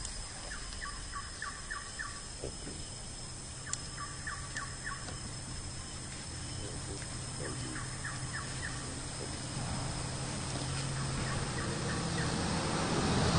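A bird calling in short, rapid rattling runs of notes, repeated every few seconds, over a steady high tone and a low rumble that grows louder near the end.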